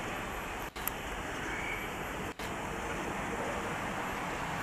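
A SEPTA Silverliner IV electric multiple-unit train moving away around a curve, heard as a steady rumble and hiss from wheels and rails. The sound cuts out briefly twice.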